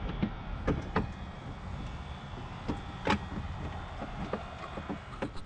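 A steady low rumble with about seven light knocks and clicks scattered through it, the sharpest about three seconds in.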